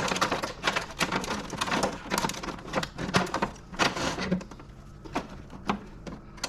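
Irregular clicks, clinks and rustling of metal parts and wiring being handled and pulled while an equipment control panel is dismantled for scrap.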